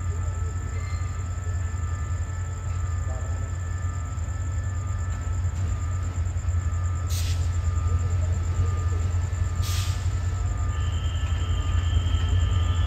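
Diesel-hauled express passenger train moving slowly along the platform: a steady low rumble, with two brief hisses about two and a half seconds apart, and a thin high squeal that starts near the end.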